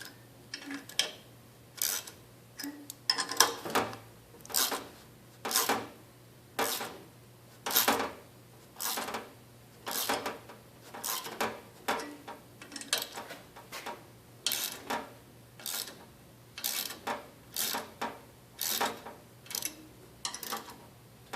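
Ratchet with a 13 mm socket clicking as it is swung back and forth, about one burst of clicks a second, turning long metric bolts in evenly to press the crankshaft out of the split crankcase.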